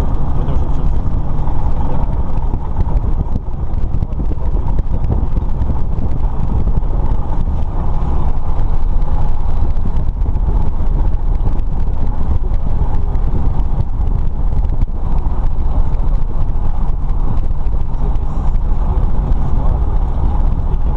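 Light aircraft's piston engine and propeller running steadily, a loud, even drone heard from inside the cabin.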